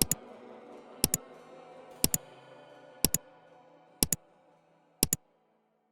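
A timer's tick sound, a quick double click once each second like a clock's tick-tock, over background electronic music that fades out.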